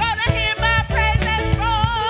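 Gospel worship band playing: keyboard with a steady bass and regular drum and percussion hits under a held, wavering lead melody.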